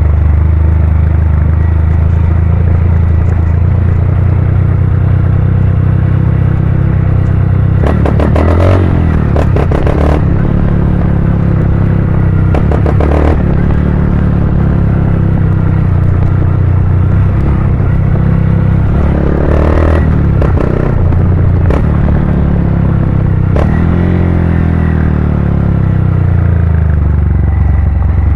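Honda CG 160 Cargo single-cylinder four-stroke engine running loudly through an aftermarket Pro Tork Competition exhaust, a steady deep rumble. Several times it breaks into bursts of rapid popping, and near the end the pitch rises briefly as the throttle is opened.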